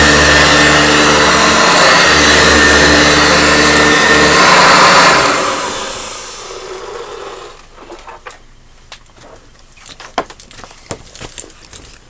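Eureka Ultra upright vacuum cleaner running steadily, then switched off about five seconds in, its motor winding down over about two seconds. Scattered light clicks and knocks follow.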